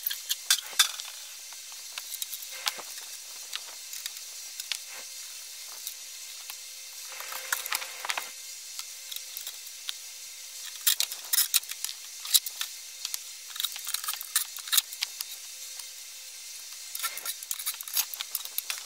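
Scattered clinks, rattles and knocks of sheet-metal parts and hardware being handled as a metal parking-lot light housing is taken apart, over a steady hiss. The taps come in small clusters, busiest about halfway through and again near the end.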